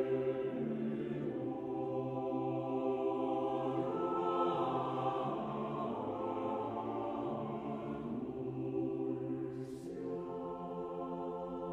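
Choral music: a choir singing long, held chords that change every few seconds.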